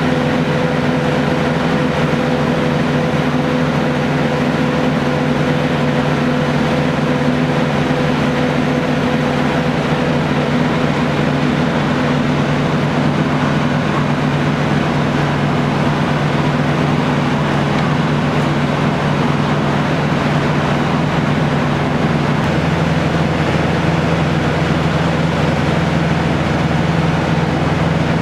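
Tractor engine running steadily close by, powering a turf-planing machine, with a constant hum whose note shifts slightly about three-quarters of the way through.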